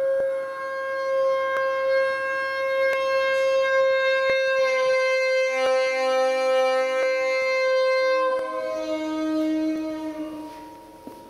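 Saxophone holding one long steady note, which shifts to a slightly higher note about eight seconds in and fades out near the end. Scattered music-box comb notes are plucked and ring over it; the music boxes are mounted in zinc buckets.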